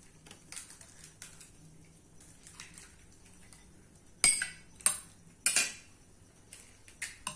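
Metal spoons clinking against bowls and plates while golgappa (pani puri) shells are filled: soft taps at first, then three sharp clinks about four to five and a half seconds in, and two more near the end.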